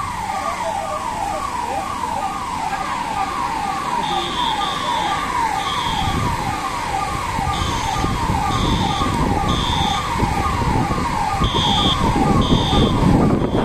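Electronic emergency siren sounding a fast repeating falling tone, about two and a half sweeps a second, the alarm of a fire drill. From about four seconds in, short high-pitched beeps come and go over it, and from about six seconds a low rushing noise grows louder.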